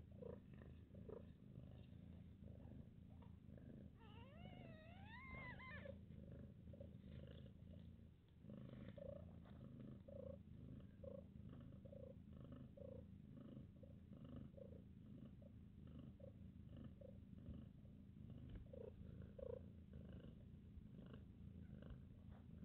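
Mother cat purring softly and steadily while her newborn kittens nurse. A brief wavering call rises and falls about four seconds in, and short faint squeaks come and go.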